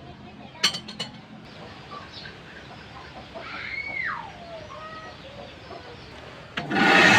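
A few sharp clicks about a second in, and a chicken calling once in the background around the middle. Near the end an electric power tool starts up loudly and keeps running.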